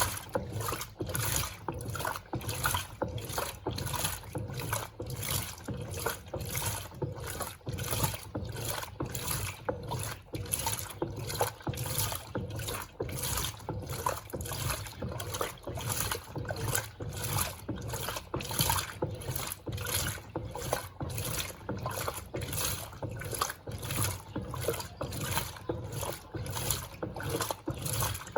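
Electrolux Turbo Compacta 7 kg top-loading washing machine agitating its wash load, water sloshing in the drum in a quick regular rhythm of a couple of strokes a second.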